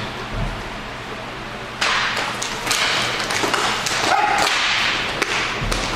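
Sharp clacks of hockey sticks and puck during inline hockey play, over steady rink noise that grows louder about two seconds in.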